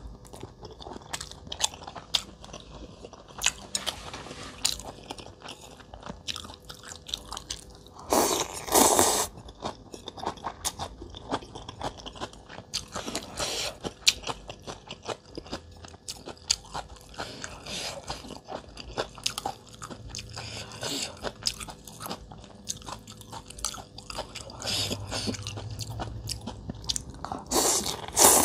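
A person chewing and smacking, with many small wet clicks, on a mouthful of mackerel belly and rice noodles. Two louder bursts stand out, about eight seconds in and at the very end, the last as rice noodles are slurped up.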